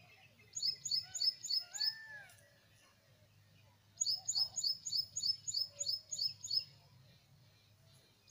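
A bird chirping in two quick runs of short high notes, about four or five a second, the second run, about four seconds in, longer than the first.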